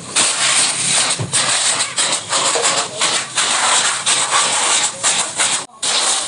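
Pressurised gas rushing out with a loud hiss in uneven bursts, with a sharp break near the end: typical of blowing a chiller's cooling coil through while it is being flushed.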